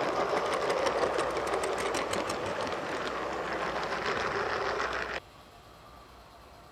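Garden-railway model train rolling past close by, its coaches' wheels rattling and clicking rapidly on the track. The sound cuts off suddenly about five seconds in, leaving only a faint steady background.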